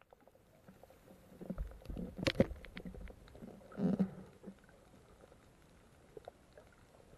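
Muffled underwater sound picked up by a submerged camera: low knocks and sloshing water movement, loudest about two seconds in and again near four seconds, over a faint steady crackle of small clicks.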